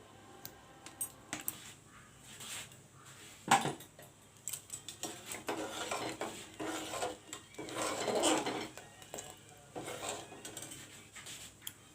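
Metal cookware clinking and scraping: a spoon working against a cooking pot, with one sharp clank about three and a half seconds in.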